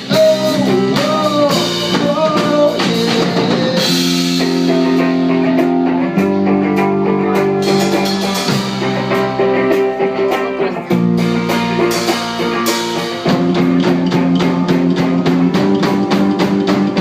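Live rock band playing the song's instrumental ending: guitar chords changing about every two seconds over a drum kit.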